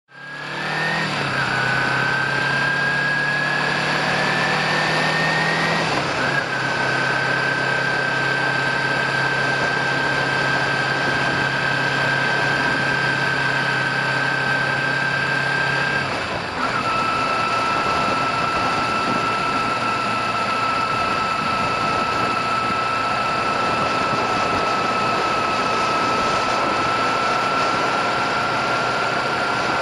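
Kawasaki Ninja 250R parallel-twin motorcycle engine running under way, heard from a bike-mounted action camera. Its pitch climbs a little and then drops at gear changes about a second in, about six seconds in and again around sixteen seconds in, before settling to a steady cruise.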